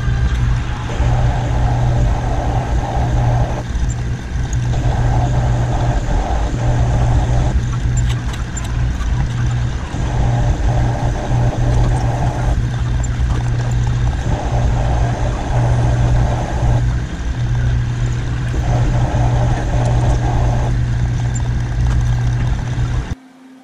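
Shop machinery running with a steady, loud low hum. A rougher, higher noise comes and goes over it in stretches of two or three seconds, and the whole sound cuts off abruptly just before the end.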